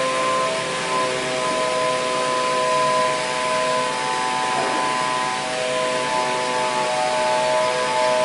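CNC machine running: a steady mechanical whine of several tones that drift slightly in pitch, over a hiss.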